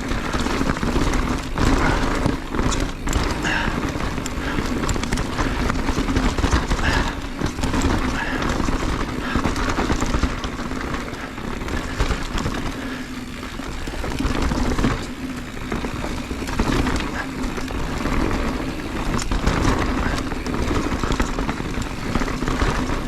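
Mountain bike descending a rocky downhill trail: a steady rumble of tyres over rock, with a constant clatter of knocks and rattles from the bike.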